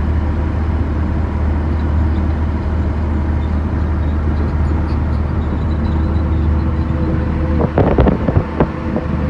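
SHACMAN F200 truck's 420-horsepower engine droning steadily while cruising at about 60 km/h, heard from inside the cab. Near the end a few sharp knocks and rattles break in over the drone.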